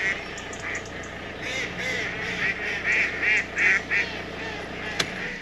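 Ducks quacking, a quick run of calls between about a second and a half and four seconds in, over the low steady hum of the parked car's idling engine.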